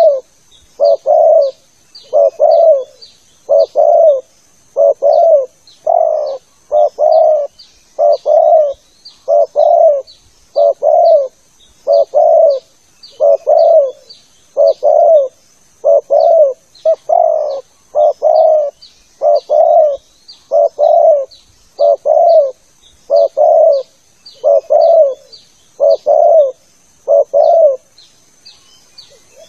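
Spotted dove (tekukur) cooing over and over, about one coo a second, with a short pause near the end. A faint steady high whine runs underneath.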